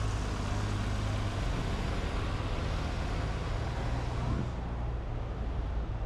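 City street traffic, with a motor vehicle's engine running close by as a low, steady hum. The hiss of the traffic thins out after about four and a half seconds.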